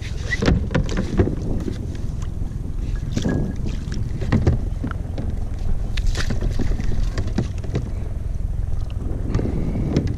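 Steady wind rumble on the microphone, with scattered knocks from gear being handled on a plastic skiff deck and a splash about six seconds in as a mushroom anchor goes into the water, then its rope is paid out.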